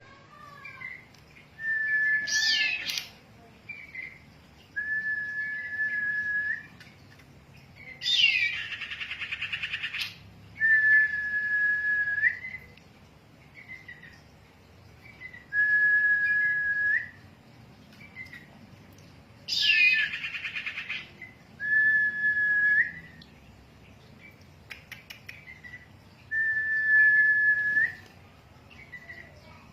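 A female sirtu bird calling over and over. Its call is a level, clear whistle of about a second and a half, repeated roughly every five seconds. Louder, harsh falling calls break in about eight and twenty seconds in.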